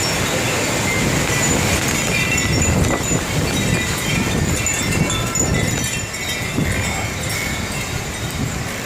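Storm wind blowing hard against the microphone in a heavy, buffeting low rumble, with scattered short, high ringing tones over it.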